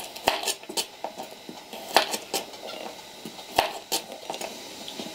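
Kitchen knife cutting garlic cloves in half on a cutting board: several sharp knocks of the blade on the board at uneven intervals.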